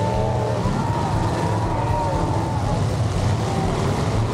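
Demolition derby cars' engines running and revving together in the arena: a loud, continuous low rumble with engine notes rising and falling in pitch.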